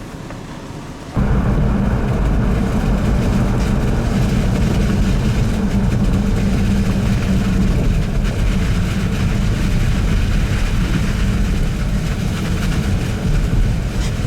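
Hurricane-force winds and rain blowing hard, with heavy wind rumble on the microphone; the noise jumps suddenly louder about a second in and then stays steady.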